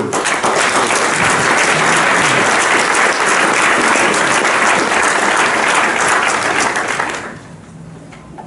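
Audience applauding, dying away about seven seconds in.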